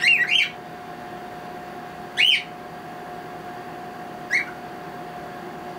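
Cockatiel giving short whistled calls: a quick double call at the start, another about two seconds in, and a shorter one about four seconds in, over a steady faint hum.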